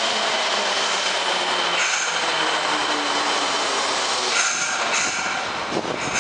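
Fukuoka City Subway 1000-series train braking into a station: a steady running noise with motor tones that fall in pitch as it slows, brief hissing bursts from about two seconds in, and a few clunks near the end as it comes to a stop.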